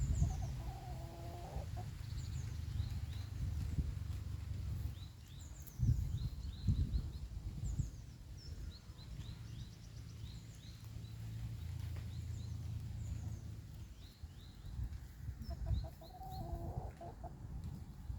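Rooster crowing twice, once at the start and again near the end, each crow about a second and a half long, with small birds chirping throughout. Under it runs a low rumble, with a few thumps about six to seven seconds in.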